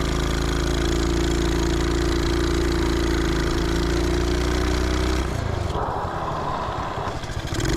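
125cc single-cylinder engine of a home-built reverse-trike ATV running at a steady speed. About five seconds in, the steady engine note gives way to a rougher, patchier noise for a couple of seconds, then comes back near the end.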